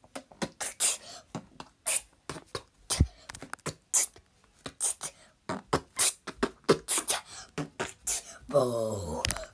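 A beginner's human beatboxing: a run of short, sharp mouth-made percussion sounds, with one deep kick-like hit about three seconds in. It ends with a falling voiced "whoa".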